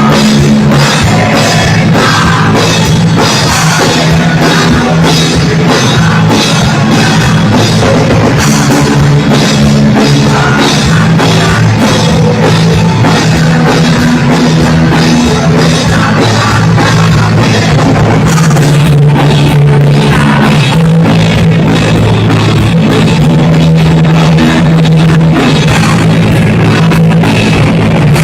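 Loud, steady punk rock: a band with drum kit and guitars playing throughout.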